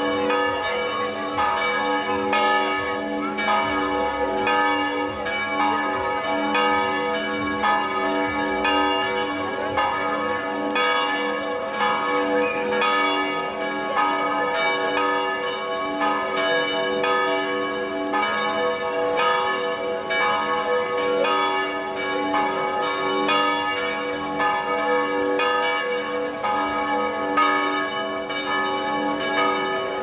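Church tower bells swinging and ringing continuously, their repeated strokes overlapping into one unbroken peal.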